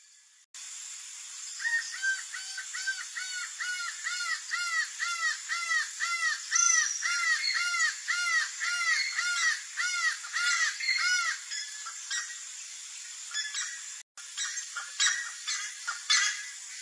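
Laughing falcon calling: a long, even series of arched, laughing notes at about two and a half a second for some ten seconds, then a few scattered fainter notes.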